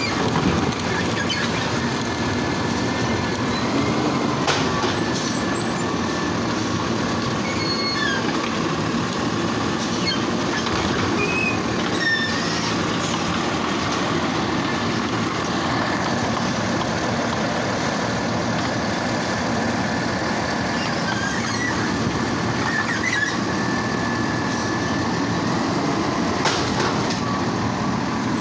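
Heil automated side-loader garbage truck running steadily, with a faint steady whine, as its arm lifts and empties wheeled trash carts. Short high squeaks come and go several times.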